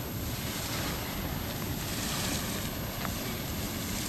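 Grotto Geyser erupting: a steady rush of splashing water, with wind buffeting the microphone.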